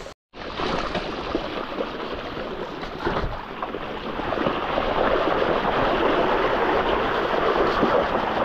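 Mountain bike rolling down a trail with water running over it: a steady rushing noise of splashing water and tyres, growing louder about halfway through.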